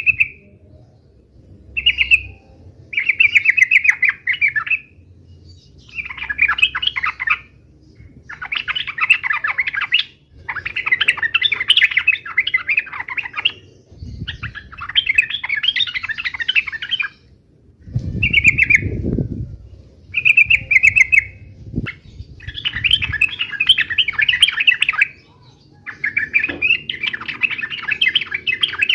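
Yellow-vented bulbul (trucukan) singing its rapid chattering fighting song in repeated bursts of one to three seconds, with short pauses and a few single short notes between. A brief low rumble comes about two-thirds of the way through.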